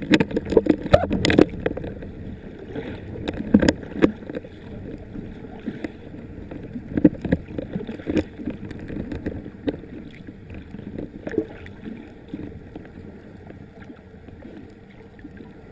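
Water sloshing and bubbling around the camera in the water, with irregular sharp pops and knocks that are densest and loudest in the first four seconds and thin out later, over a low steady rumble.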